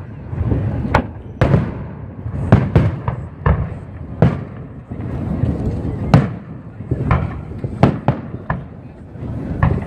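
Aerial fireworks shells bursting in a display: a rapid, irregular run of sharp bangs, about one to two a second.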